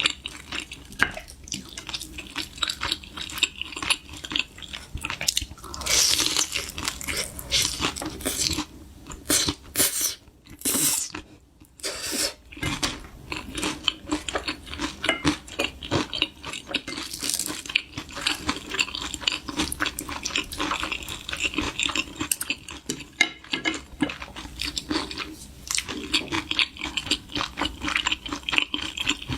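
Crunching and chewing of food, with clicks of dishes and utensils and some water sounds, briefly quieter near the middle.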